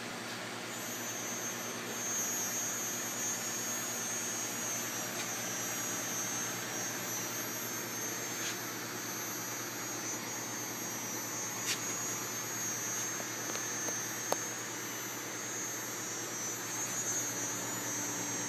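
Steady hum and hiss of running aquarium equipment, with a couple of short sharp clicks about twelve and fourteen seconds in.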